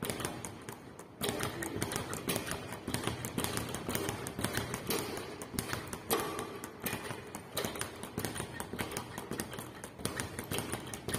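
Speed bag being punched with hand-wrapped fists, rattling rapidly against its overhead rebound board in a steady drumming rhythm that picks up about a second in.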